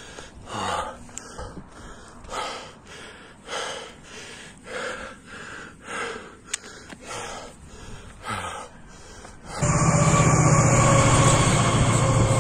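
A runner's heavy, rhythmic breathing, about one breath a second. About nine and a half seconds in, a locomotive-hauled double-deck passenger train passing by starts suddenly and drowns it out with a loud, steady rumble and hum.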